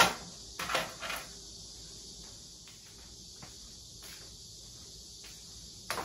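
Kitchenware being handled: three sharp knocks in the first second or so, then a steady faint hiss with a few light ticks and another click near the end.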